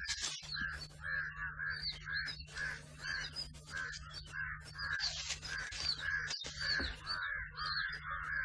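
A bird calling over and over in short, harsh calls, about two or three a second, with higher chirps in between, over a low steady hum.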